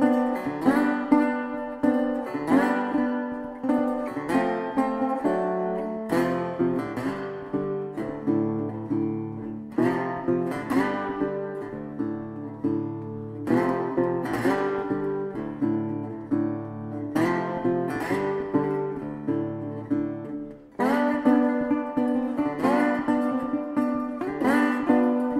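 Background music: acoustic guitar playing plucked notes in a steady rhythm.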